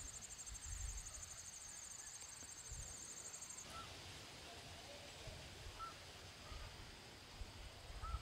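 Faint outdoor nature ambience: a steady high-pitched insect trill that stops abruptly a little under four seconds in, then three short, faint bird chirps over a low rumble.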